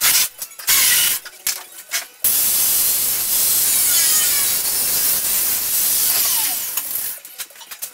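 Cordless drill run in short bursts on the steel fender brace, then a cutting wheel running steadily for about five seconds as it cuts through the sheet-metal skin of a rusted pickup fender. It stops suddenly.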